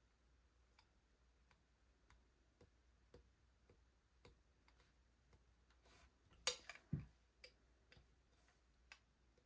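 Near silence with faint, regular ticking about twice a second, and a brief louder clatter of clicks and a knock about six and a half seconds in.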